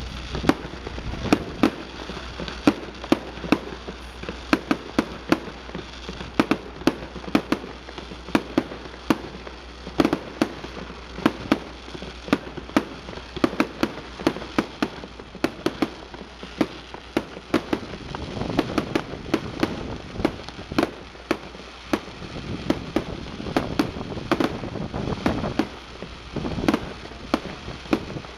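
Aerial fireworks bursting in a rapid, unbroken barrage of sharp bangs, about two or three a second.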